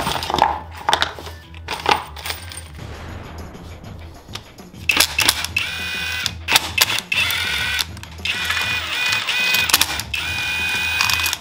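Plastic bag crinkling as a part is unwrapped, then a cordless power driver with a socket whining in several short runs as it drives bolts into the engine case.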